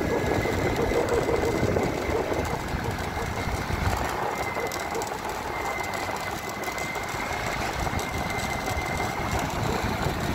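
Motor scooter running steadily at road speed, with wind rushing over the microphone and a thin, steady high whine held throughout.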